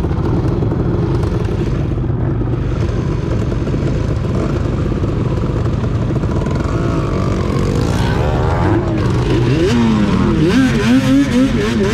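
ATV engines running while riding across soft sand. From about eight seconds in, the engine pitch rises and falls over and over as the throttle is worked.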